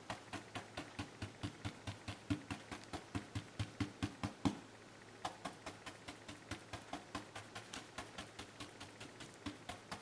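Flat bristle brush loaded with oil paint tapping against a stretched canvas, about four to five soft taps a second, dabbing in dark foliage. The taps grow softer about halfway through.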